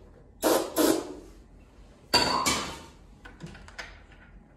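Aerosol can sprayed in short hissing squirts into an old two-stroke snowmobile's carburettor, in three pairs of quick bursts. Light clicks and taps of hands on the carburettor follow.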